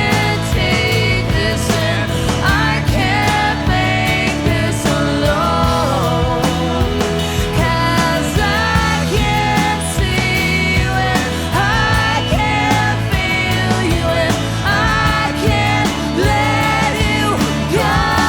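Music: a song with a steady beat and bass line under a melody that slides in pitch.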